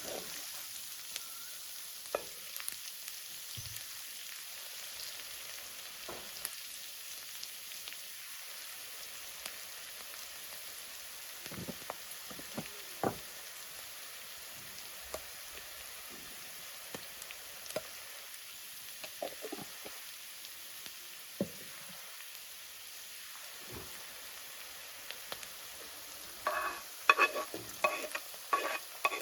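Food frying in a pan with a steady sizzling hiss, broken by occasional knocks and scrapes of a utensil stirring it. Near the end comes a quick run of ringing metal clinks against the pan.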